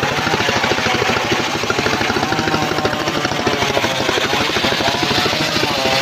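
Engine of a homemade mobile circular sawmill running steadily with fast, even pulsing. A wavering whine from the saw rises and falls over it.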